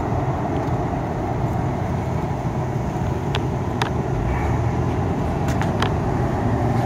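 Truck driving at a steady pace: constant engine and road rumble, with a few light clicks midway.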